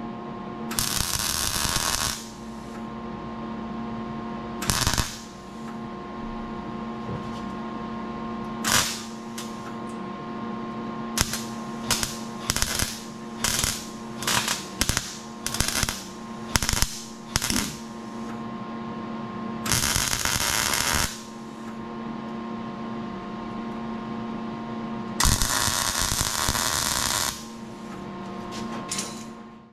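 MIG welder crackling as short welds are laid on sheet-metal car floor and trunk panels: a few welds a second or two long, and a quick run of about ten brief ones in the middle. A steady electrical hum sounds beneath.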